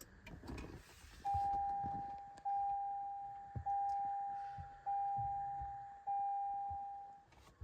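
Toyota Sequoia's dashboard warning chime sounding five times just after the ignition is switched on. Each chime is a single pure tone that fades away, one every second or so.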